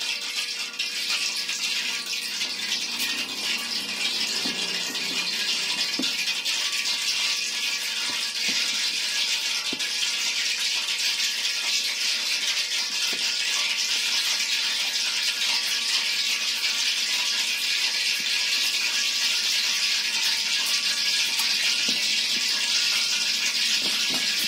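Hot cooking oil sizzling steadily as flour-coated chicken deep-fries in it, a noisy hiss that grows a little over the first few seconds and then holds.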